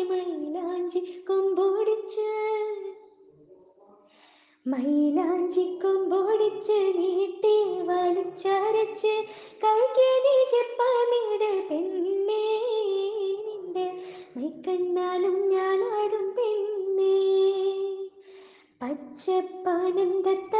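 A woman singing a melody, with a pause of about a second and a half a few seconds in and another brief pause near the end.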